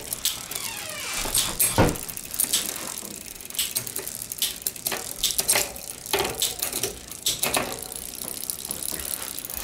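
Bicycle chain running over spinning rear sprockets while the Shimano SIS rear derailleur is shifted, with irregular clicks and clatter as the chain jumps from cog to cog. This is a test of the gear indexing after a small cable-tension adjustment.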